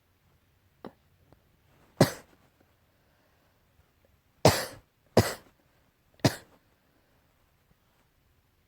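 Coughing, tied to an allergy: one loud cough about two seconds in, then three more about a second apart near the middle.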